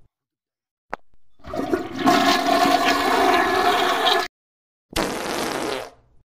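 A toilet-flush sound effect: a rush of water with a faint steady tone in it, starting about a second and a half in and cutting off abruptly past the middle, then a second, shorter rush about five seconds in. A brief click comes just before the first rush.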